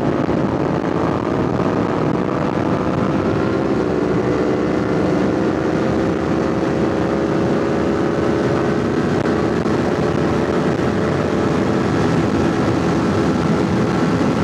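Kawasaki Ninja 500's parallel-twin engine pulling under steady acceleration, its pitch rising slowly through the first half and then holding, as the bike gains speed. Heavy wind noise on the helmet microphone runs under it.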